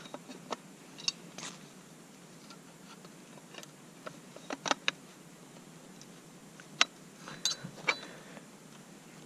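Airsoft Sten gun's stock being fitted back onto the receiver by hand: scattered sharp clicks and knocks of the parts, the loudest about two-thirds of the way through.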